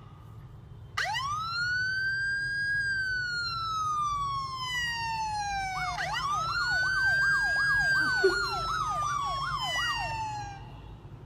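A siren sounds, rising quickly and then falling slowly in one long wail. About halfway through a second wail starts, with a fast up-and-down yelp of about three sweeps a second laid over it for several seconds.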